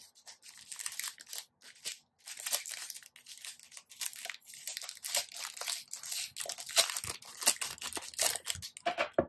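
Clear plastic packaging bag crinkling and crackling in the hands as a metal photo-card tin is unwrapped from it, in irregular bursts with brief pauses.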